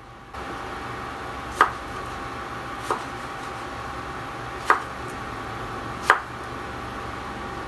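Chef's knife slicing through tomatoes and knocking on a wooden cutting board: four sharp knocks a second or so apart, over a steady background hum.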